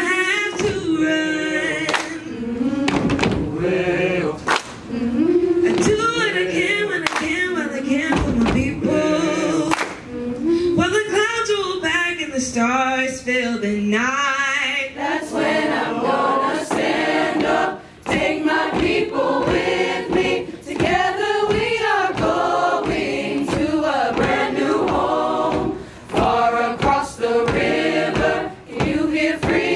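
A female soloist sings into a handheld microphone with a choir behind her, her voice bending and wavering widely in pitch. From about halfway through, the full choir's voices fill in more densely.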